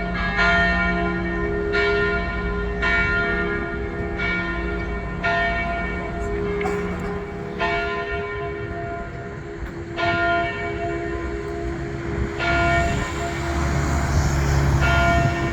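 Church bells ringing, with a new strike about every second that slows toward the end, each stroke ringing on over a lingering hum. A low rumble swells beneath the bells near the end.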